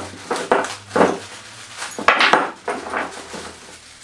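Irregular clinks and knocks of metal parts being handled as the table lock handle is fitted to a drill press table, mixed with crinkling of the plastic wrap around the table.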